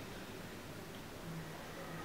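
Quiet room tone: a faint steady low hum under a soft hiss.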